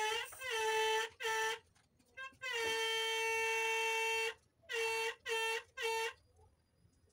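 Loud honking of steady pitch, like an air horn, sounded in a run of short honks with one long honk of nearly two seconds in the middle, then stopping about six seconds in.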